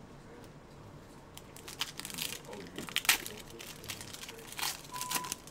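Foil wrapper of an NBA Hoops trading-card pack crinkling and tearing as it is pulled open by hand, with a run of sharp, irregular crackles starting about a second and a half in.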